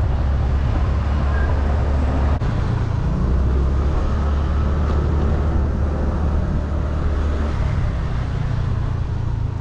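Motorcycle running steadily while being ridden, its engine hum mixed with road and wind noise.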